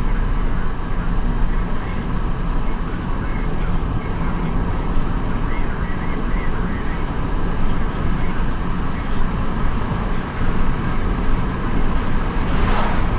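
Steady road and engine noise of a car driving at speed, heard inside the cabin, with a brief rushing whoosh near the end.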